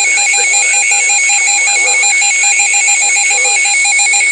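Electronic alert tone of a tornado-warning broadcast, beeping rapidly and steadily with several pitches at once, like an alarm.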